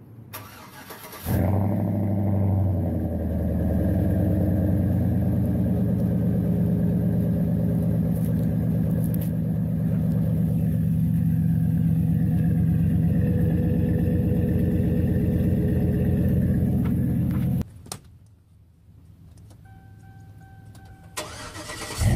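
Pickup truck engine starting, then idling steadily through its Z06 exhaust, a deep even rumble. It cuts off suddenly about seventeen seconds in, and the engine is running loud again near the end.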